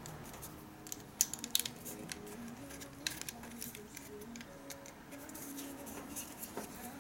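Scattered small clicks and taps of a round gouge blade being fitted and hand-tightened into the blade holder of a Proxxon MSG electric carver, with the motor not running.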